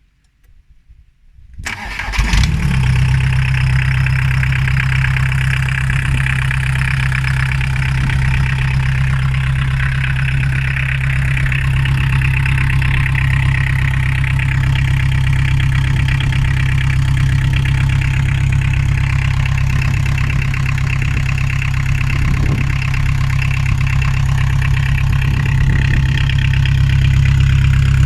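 Homemade tractor's Volkswagen 1.9-litre four-cylinder diesel engine starting about two seconds in, then idling steadily.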